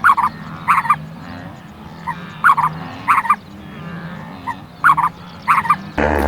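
Domestic fowl calling: short calls repeated every half second or so, often two or three close together, over a steady low hum. Near the end a louder animal call with a wavering pitch begins.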